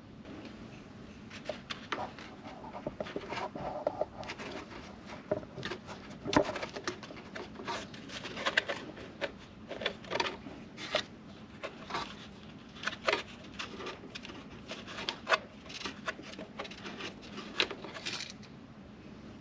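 Irregular clicks, taps and knocks with some rubbing, many in quick runs and a few louder ones: hand work on a scooter during an oil change, tools and parts being handled.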